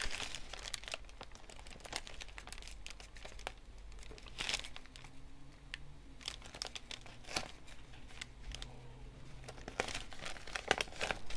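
Wax paper and vinyl sheet crinkling and rustling under the hands as the cut vinyl is handled and lined up, in scattered small crackles and clicks.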